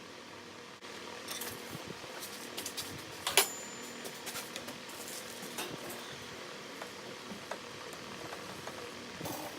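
Light metallic clicks and clinks of a lathe steady rest being adjusted by hand, with one sharp click about three and a half seconds in, over a faint steady hum.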